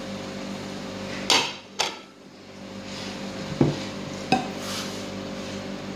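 A wooden spatula stirring a tuna and flour mixture in a glass mixing bowl, knocking against the glass four times, twice in quick succession and then twice more, over a steady background hum.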